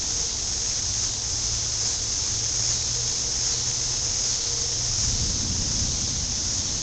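Gusty storm wind buffeting the microphone, a low rumble that swells about five seconds in, under a steady high hiss.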